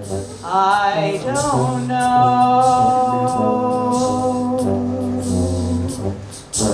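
A solo voice singing into a microphone: a short wavering phrase, then one long held note, over a low steady note sustained underneath.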